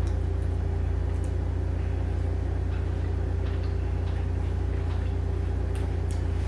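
A steady low hum with a few faint steady tones above it, and a few faint clicks from eating with a fork.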